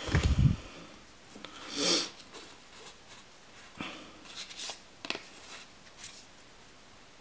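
Pokémon trading cards handled in the hands: soft rustles and a few light card slides and taps as the stack is shuffled. A short low thump comes right at the start.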